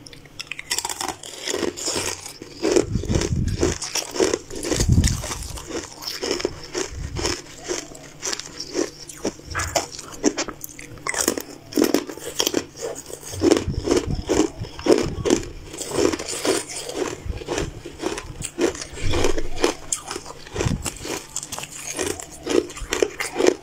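Close-miked crunching and chewing of hard, brittle sweet crystals: many quick crunchy bites in an irregular run, with chewing between them.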